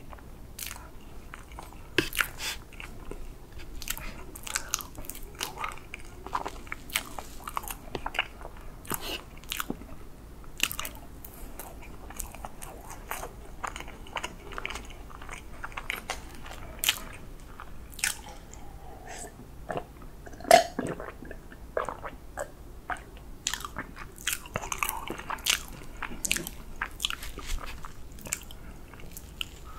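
Close-miked mouth sounds of chewing a soft whipped-cream chocolate cake: a steady run of short, sharp mouth clicks and smacks, with one sharper click about two-thirds of the way through.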